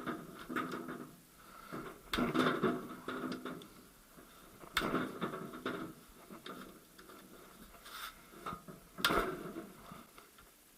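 Metal tools and small gearbox parts clinking and knocking during work on a manual gearbox's gear-shift detents, with several sharp ringing clanks, the loudest about two, five and nine seconds in.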